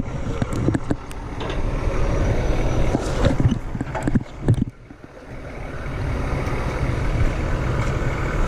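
Heavy truck diesel engine running steadily, with several sharp knocks and clatter of equipment handling about three to four and a half seconds in, and a brief drop in level near the middle.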